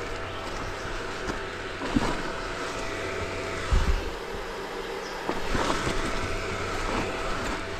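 Dirt bike engine running at low speed, its low drone dipping briefly about halfway through, with a couple of thumps, about two and four seconds in.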